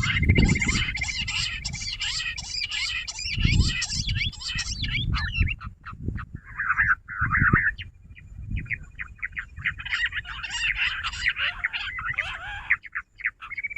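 Jungle bush quail calling: a busy chorus of rapid chirping notes, opening with a steady high trill and thinning out about halfway through before picking up again. Low thumps sound underneath.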